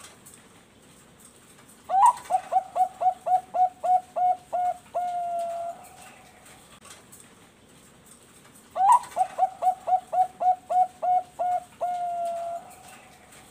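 Bangkok-type perkutut (zebra dove) cooing its song twice: each phrase opens with a rising note, runs into about ten quick clipped coos, and ends on one long held note. The two phrases come about seven seconds apart.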